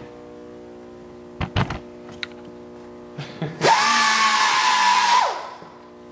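A hand-held power tool, most likely a grinder, spins up quickly to a steady high whine with hiss, runs for about a second and a half, then winds down. A couple of sharp metal knocks come about a second and a half in.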